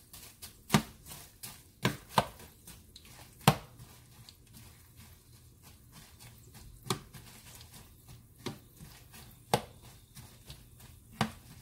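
Metal utensil stirring dried chiles de árbol in hot oil in a nonstick frying pan: about eight irregular sharp clicks as it knocks against the pan, over a faint sizzle of the chiles frying.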